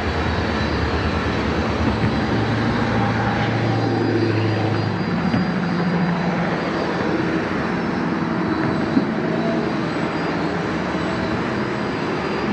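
Canadian Pacific diesel freight locomotive's engine droning steadily as it approaches, its low pitch stepping up about five seconds in.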